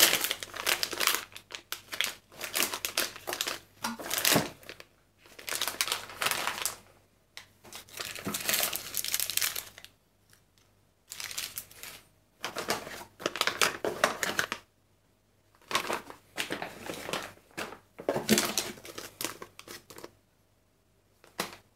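Plastic bags (shiny anti-static bags and small clear bags of parts) crinkling as they are handled and lifted out of a box, in irregular bursts with short pauses.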